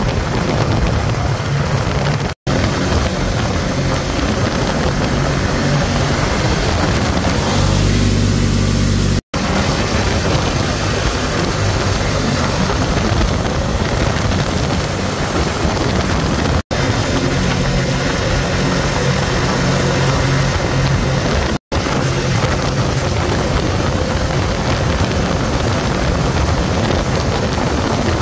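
Side-by-side UTV running steadily at road speed, its engine note under wind and tyre noise on pavement. The sound drops out for an instant four times.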